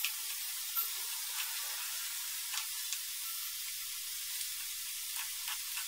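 Small diamonds of nimki dough deep-frying in hot oil in a wok over a very low flame: a steady sizzle with a few scattered small pops and clicks.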